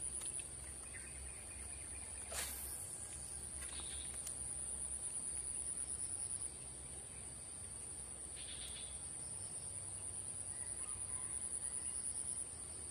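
High-pitched insect trill, a steady rapid pulsing chirp, which weakens about six and a half seconds in and then builds again. A single short sharp sound about two and a half seconds in.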